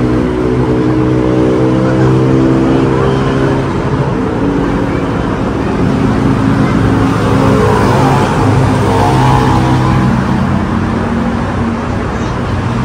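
Busy city road traffic: vehicle engines droning steadily, with cars passing.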